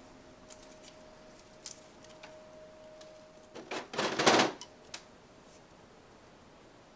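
Handling noises: scattered small clicks and taps, with a brief scraping, rustling burst about four seconds in.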